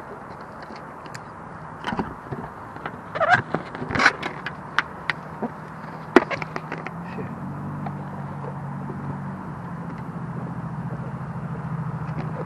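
A handful of sharp clicks and snaps in the first half. Then, from about seven seconds in, a motor vehicle's engine hums steadily and grows slightly louder.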